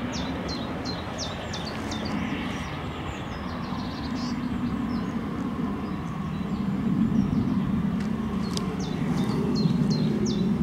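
Distant steam train, an LSWR M7 tank engine with its carriages, running across the fields as a steady low rumble that swells in the second half. Birds call in many short, high chirps near the start and again near the end.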